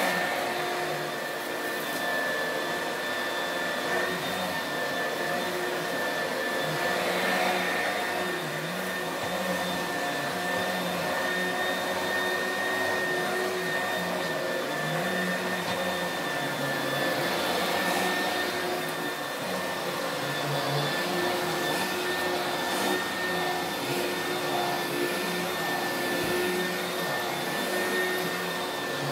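A 1988 Oreck XL upright vacuum cleaner running steadily, with a high motor whine over a rushing hiss, as it is pushed back and forth over a rug.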